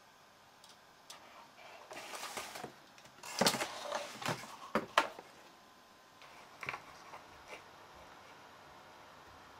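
Handling noise of a CPU cooler and its cardboard packaging: rustling and a series of sharp clicks and knocks of the plastic fan shroud and box, most of them between about three and five seconds in, then only faint handling.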